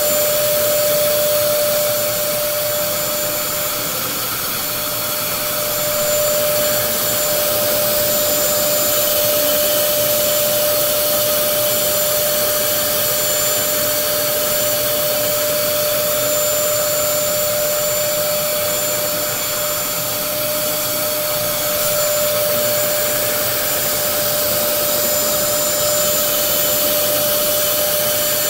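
Bissell DeepClean Premier upright carpet cleaner running continuously, with a steady motor whine over the rush of its suction. The level dips and swells slightly now and then.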